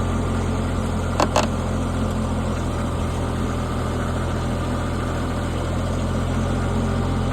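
Rippa NDI665 mini skid steer's 23-horsepower diesel engine running steadily while the machine lifts a heavy load of about 960 pounds. Two short clicks come about a second in.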